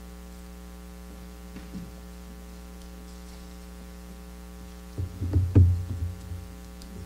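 Steady electrical mains hum with a ladder of buzzing overtones. About five seconds in, a short cluster of louder low thumps.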